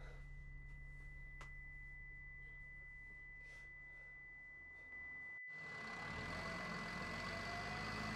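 A steady high-pitched tone rings over the low hum of a bus heard from inside. About five seconds in the sound drops out for an instant, and the louder running noise of a city bus and traffic passing outside takes over, with the tone still ringing.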